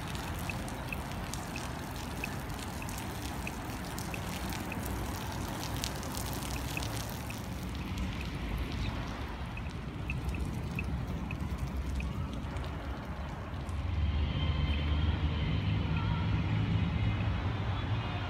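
Outdoor ambience just after rain: a steady hiss with scattered drips and clicks, and a low rumble that grows louder about 14 seconds in.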